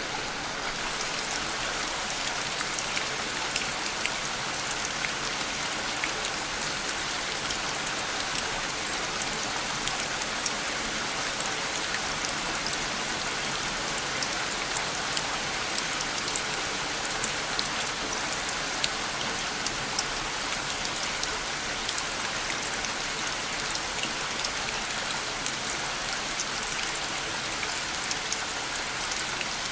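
Steady rain falling: an even hiss sprinkled with many small, sharp drop ticks.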